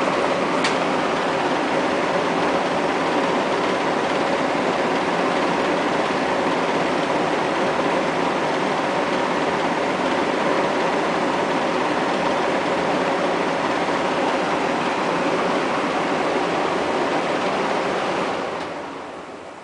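18-inch Vornado window fan running on high: a steady rush of air over a motor hum. Near the end its switch is turned and the sound falls away as the fan slows.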